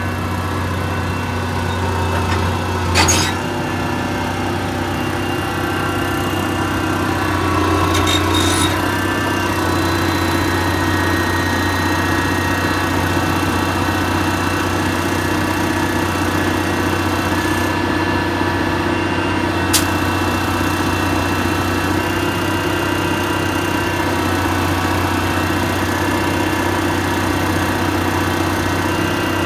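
Liebherr 962 crawler excavator's diesel engine running steadily, with hydraulic whine, while the arm and bucket are curled in. The engine picks up a little under hydraulic load about a quarter of the way in, and there are a few sharp clicks.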